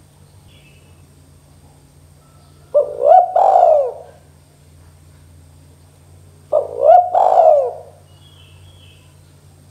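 Spotted dove cooing: two phrases about four seconds apart, each a short note followed by two longer coos that rise and fall in pitch.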